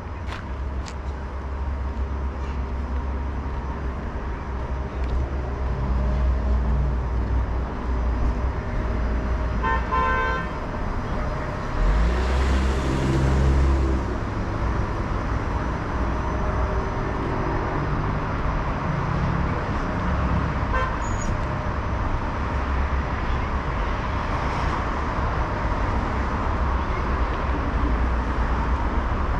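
Street traffic running with a steady low rumble. A car horn gives a short toot about ten seconds in, and a louder vehicle passes close a couple of seconds later.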